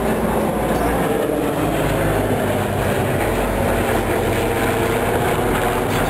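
Steady engine noise of a Douglas DC-7 flying overhead, the sound of its four Wright R-3350 turbo-compound radial piston engines.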